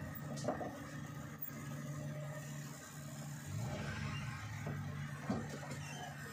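Vehicle engine running with a low, steady hum, heard from inside the cab while driving slowly. The pitch rises slightly about three and a half seconds in, and there are a couple of light knocks.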